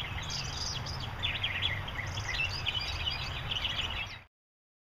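Many small birds chirping in quick, overlapping calls over a low rumble of outdoor background noise, stopping abruptly about four seconds in.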